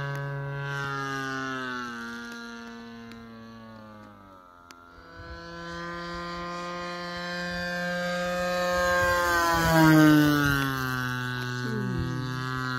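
Radio-controlled model airplane's two-stroke gasoline engine droning in flight. It fades as the plane flies away, then grows louder to a peak about ten seconds in as it passes, and its pitch drops as it goes by.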